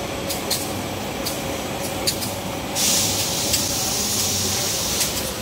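Steady running noise of tissue-paper converting machinery with a faint constant hum and scattered sharp clicks. Just before the middle, a loud hiss starts and lasts about two seconds.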